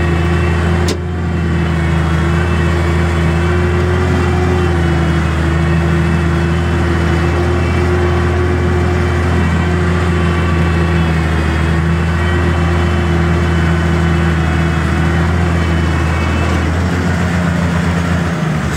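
Tractor diesel engine with a cut-down exhaust running steadily under load while pulling a mounted plough through the ground, with one sharp click about a second in. Near the end the engine note breaks up and drops as the tractor eases off.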